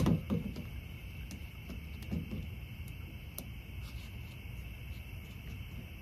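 Steady high chorus of insects chirping, over a low rumble of wind, with a few soft thumps in the first couple of seconds.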